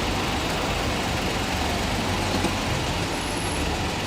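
Steady road traffic noise: a continuous rumble of vehicles running and idling nearby.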